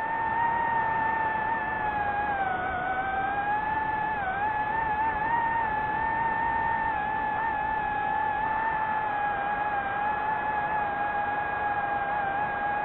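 DJI FPV drone's motors and propellers whining at a steady pitch, with a slight dip in pitch a couple of seconds in and small wobbles after.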